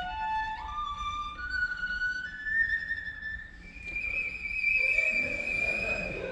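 Cello and double bass duo playing a slow passage: a bowed line climbs step by step through held notes to a long high sustained note, and about five seconds in a lower bowed part joins underneath.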